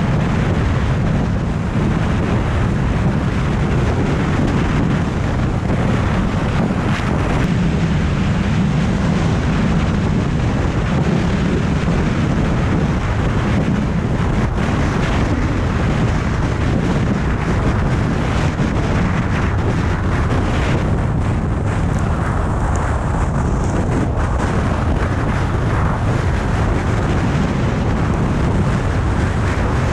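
Tornado winds buffeting the microphone: loud, steady wind noise with no letup.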